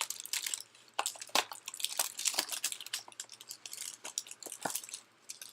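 Packaging of a small mystery-figure box being worked at and pried open by hand: a run of irregular crinkles, clicks and small crackles.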